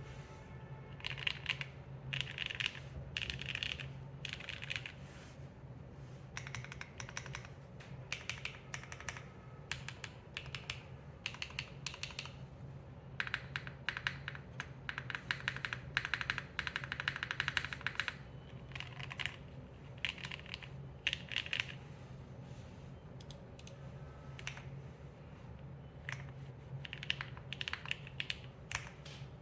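Typing on a Neo80 mechanical keyboard with 1983 vintage Cherry MX Black linear switches in a carbon fibre plate, GMK keycaps and no foam: runs of keystroke clacks with short pauses, fastest and densest about halfway through.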